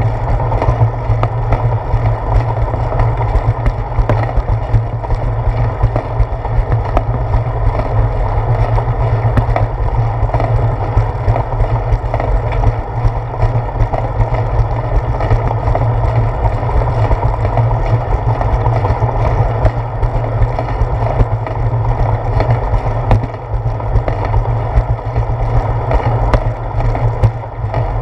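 Steady wind and road noise from a bicycle rolling along a concrete path, picked up by a handlebar-mounted GoPro: a loud, even rush with heavy low rumble.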